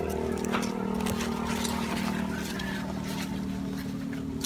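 Steady drone of an engine running at an even speed, with a few light clicks and rustles of leaves.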